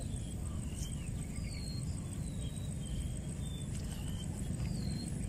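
Open-air ambience: a steady low rumble under short, high bird chirps coming about twice a second. A faint steady high whine runs behind them.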